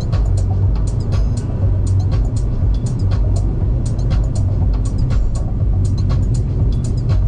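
Car on the road: a steady, heavy low rumble of engine and tyre noise, with frequent short sharp ticks and clicks over it.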